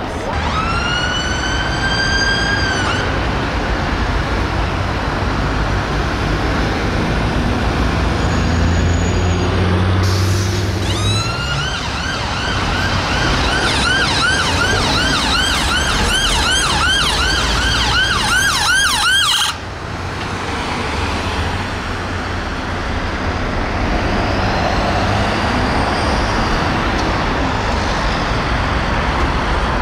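Fiat Ducato ambulance's siren over road traffic noise: a short rising wail at the start, then, about ten seconds later, a fast yelp of about three to four sweeps a second. The yelp runs for about eight seconds and cuts off suddenly.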